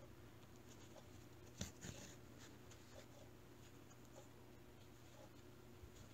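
Near silence, with faint rustling of yarn being drawn through crocheted stitches while a piece is sewn on, and two brief scratchy rustles about one and a half to two seconds in.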